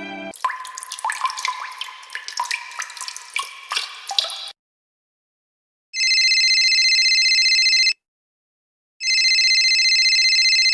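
Sound-effect clip of water drops plinking in quick succession for about four seconds. After a short silence comes an electronic telephone ring, sounding twice for about two seconds each.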